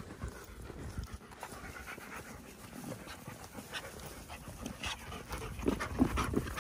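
German Shepherd dogs panting as they trot through long grass, loudest near the end as one comes up close.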